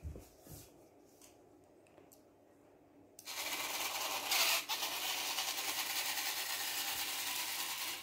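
The robot car's small 100 RPM DC gear motors whirring steadily as it drives across the floor. The sound starts about three seconds in and stops abruptly at the end.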